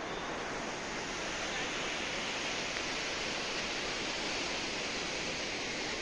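Steady rushing noise of the Aharbal waterfall, water pouring down without a break.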